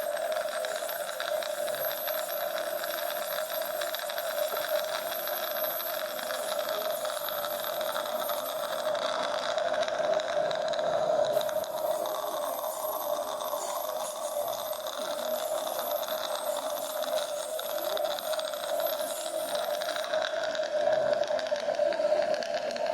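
Dental office equipment running steadily: a continuous hum and hiss. A faint, very high whine sounds through the first half and stops about halfway.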